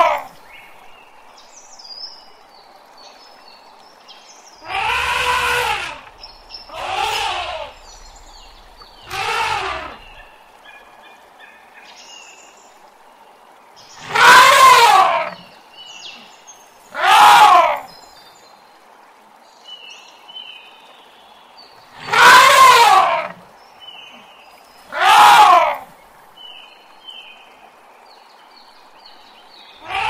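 Elephant trumpeting: seven loud, high calls, each about a second long, in groups of two or three with quieter gaps between.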